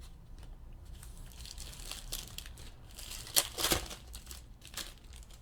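Crinkling of a trading-card pack wrapper as it is handled and torn open, in irregular rustles. The loudest crackles come about three and a half seconds in.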